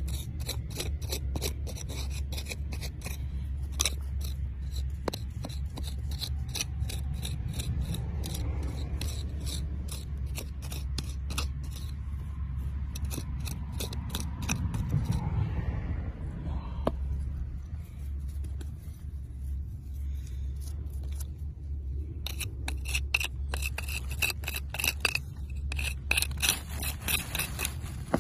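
Dry, gritty soil being scraped and dug away from around a crystal cluster: runs of quick, sharp scratches, thinning out in the middle and picking up again near the end, over a steady low rumble.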